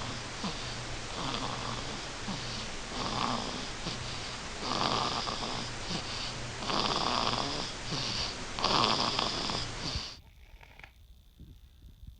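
A sleeping baby snoring in a steady rhythm, about one snore every two seconds, five in all. The snoring stops abruptly about ten seconds in.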